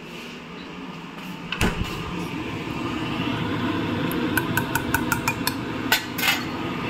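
A steel ladle stirring curry in an open pressure cooker pot on a gas stove, clinking against the metal pot in a quick run of taps, over a steady rushing noise from the cooking. A single sharp knock comes about a second and a half in.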